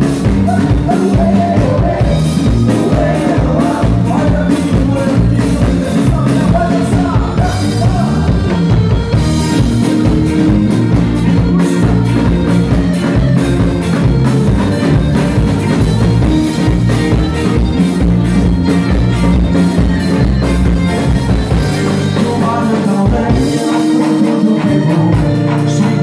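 Live band playing upbeat dance music with accordion, drum kit and electric guitar over a steady driving beat. The bass and kick drum drop out for a moment near the end.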